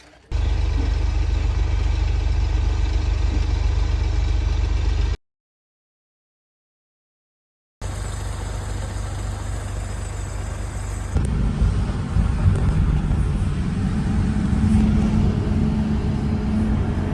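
Heavy diesel excavator engine running, a loud steady low rumble. It cuts out abruptly about five seconds in and comes back under three seconds later. Around eleven seconds in it changes to a deeper, heavier sound.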